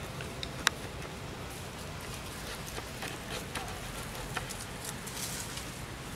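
Dry leaf litter crackling and rustling under a macaque's footsteps, with one sharp snap about two-thirds of a second in and scattered small crackles later.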